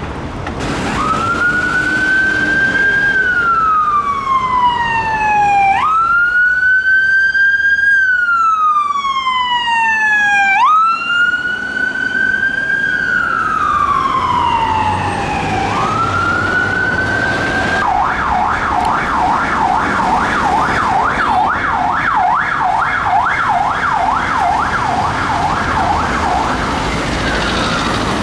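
Emergency vehicle siren on a slow wail, rising and falling about every five seconds, switching about two-thirds of the way through to a fast yelp of about two sweeps a second, then falling away near the end. Road traffic noise runs underneath.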